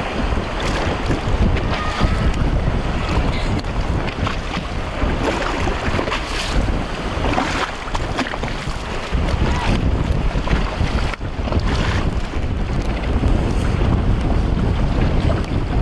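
Strong wind buffeting the microphone over choppy open water, a deep, gusty rumble with waves splashing.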